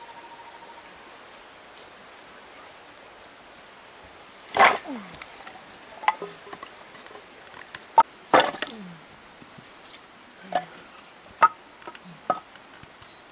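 Split firewood sticks knocked and clacked against one another as they are laid onto a stack: about seven sharp wooden knocks, sparse and uneven, the loudest pair around the middle.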